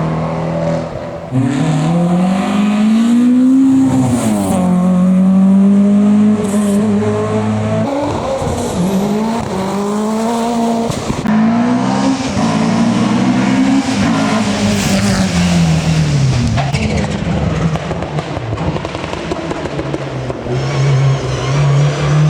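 Racing car engine under hard acceleration, its pitch climbing and dropping again and again as it shifts gears and slows for corners, with a long fall and a low stretch before it climbs again near the end.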